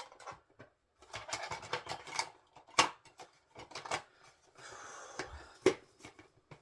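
Handling noise from a Betamax video cassette and its case: irregular plastic clicks, rattles and scraping, with two sharp clicks about three and six seconds in.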